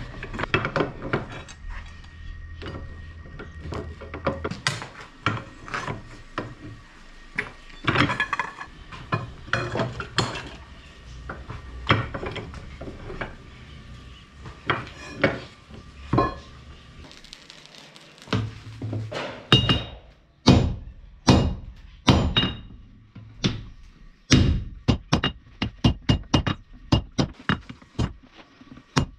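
Hammer blows on steel against an anvil as the metal is forged, with irregular strikes that ring briefly. Near the end the blows come in a quick, regular run.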